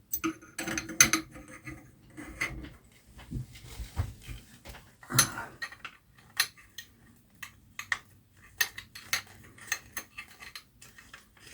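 Irregular metallic clicks and short scrapes of a Benjamin 3600 air gun's CO2 Powerlet cap being screwed by hand into its tube.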